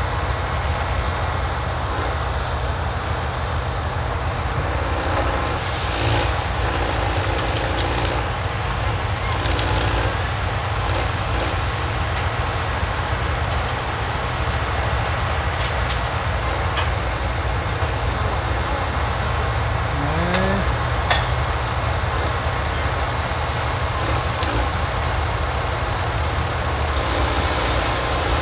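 Diesel engine of a forestry harvester running steadily as the machine works its crane and harvester head, with a short rising whine about twenty seconds in.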